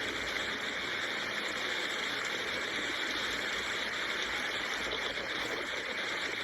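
Steady rainfall, an even hiss of rain with no breaks.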